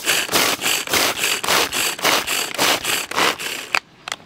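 Rhythmic scraping or rubbing strokes, about four a second, stopping abruptly near the end.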